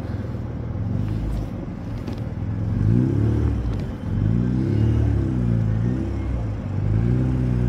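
Car engine heard from inside the cabin, revving up and easing off three times as the car is driven slowly over a rough dirt road.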